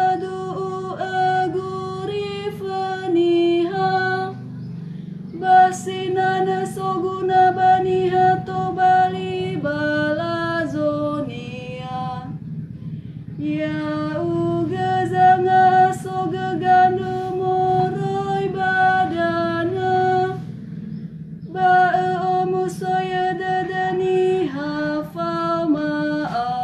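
A woman's solo voice chanting a psalm verse in Nias to a psalm tone. Each line is held mostly on one repeated note and steps down to lower notes at its close. There are short breaks for breath between the lines.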